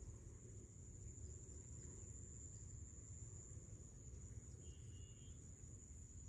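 Near silence in the open: a faint, steady, high-pitched insect trill, likely crickets, over a low rumble.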